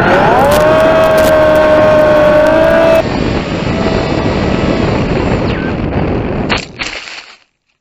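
Electric motor and propeller of a small FPV plane whining, the pitch rising as the throttle comes up about half a second in, then holding steady. After about three seconds the sound changes to a rush of air over the plane's onboard camera as it skims low over the ground. Two sharp knocks near the end as it touches down in the grass.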